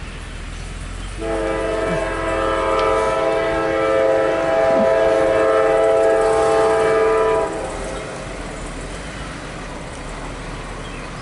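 Freight locomotive air horn blowing one long blast of several notes at once, starting about a second in and lasting about six seconds, over a steady low rumble.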